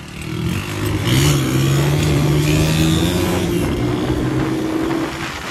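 Motorcycle engine running close by: it picks up and rises in pitch in the first second, holds a steady note for a few seconds, then drops away near the end.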